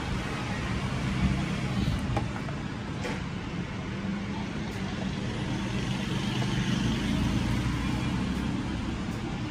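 Steady low rumble and hum of background noise, with a few faint clicks about two, three and five seconds in.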